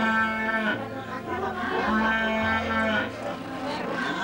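Background music: long held notes that come again every two to three seconds, over a bass line that moves in steps.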